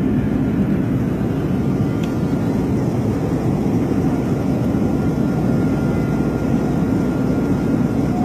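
Steady low roar inside an airliner cabin during a depressurization: engine and airflow noise.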